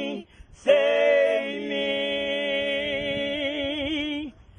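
Gospel voices singing unaccompanied, holding one long closing note that wavers near the end and stops about four seconds in.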